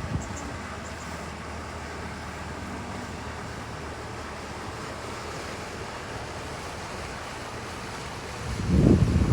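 Steady wash of wind and sea waves on open water, with a faint low hum of the boat's engine under it. Near the end a loud, jagged low rumble of wind buffeting the microphone comes in.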